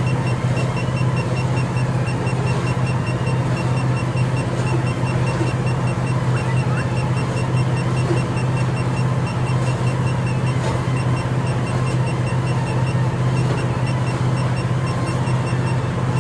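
Steady low hum under a rapid, even beeping from a digital torque-angle wrench as it counts the angle on a cylinder-head bolt being turned toward 180 degrees. There are a few faint clicks.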